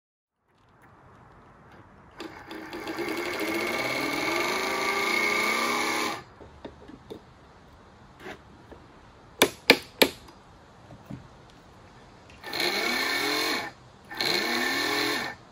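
Model A Ford electric motor horn sounding on the bench as it is adjusted: one long rasping blast of about four seconds, a few sharp clicks, then two short blasts near the end. In each blast the pitch rises as the horn motor spins up.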